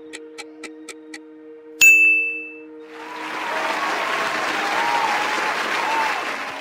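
Quiz-game sound effects: a countdown timer ticking about four times a second stops about a second in, and a single bright ding rings out just under two seconds in as time runs out and the correct answer is revealed. Then a crowd applauds and cheers.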